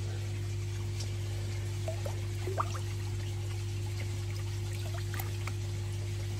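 Water trickling, with a few small drips and plinks, over a steady low hum.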